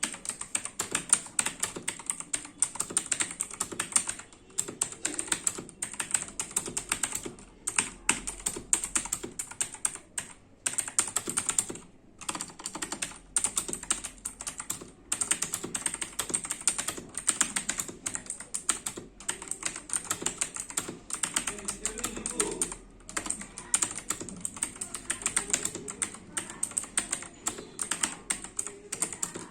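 Typing on an HP GK320 mechanical keyboard with blue switches: a fast, continuous stream of clicky keystrokes in runs broken by brief pauses.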